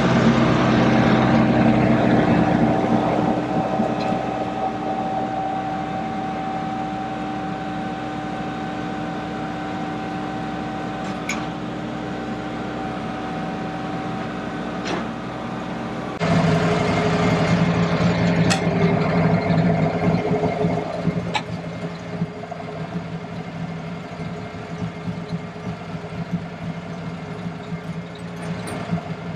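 Woodmizer LT15 Wide portable bandsaw mill running with its belt newly tensioned, its engine and blade making a steady drone. About halfway through the tone changes abruptly to a lower, different pitch, which then slowly fades, with a few sharp ticks here and there.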